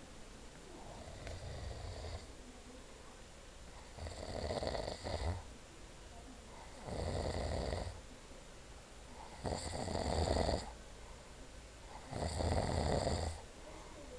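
Snoring, about five rhythmic snores roughly every two and a half seconds, the first one weaker.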